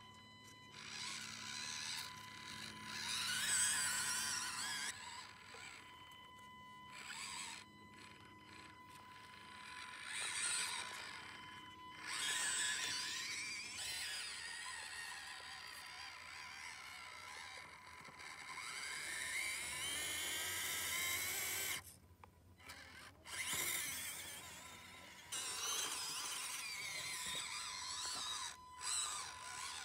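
Small brushed electric motor and gears of an Axial SCX24 Jeep JL 1/24-scale RC crawler whining in bursts as it drives, stopping and starting every few seconds. The pitch rises and falls with throttle, with one longer rising whine past the middle.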